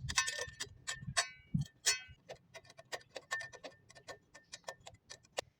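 Ratchet wrench clicking in quick, even ticks as bolts on a chimney pipe's adjustable bracket are tightened. The clicks are denser and louder in the first two seconds.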